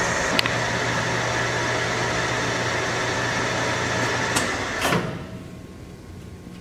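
DoAll Romi 13-5 engine lathe running with a steady hum. About four and a half seconds in, two clicks come as the apron lever is thrown, and the spindle and chuck spin down until only a low background hum is left.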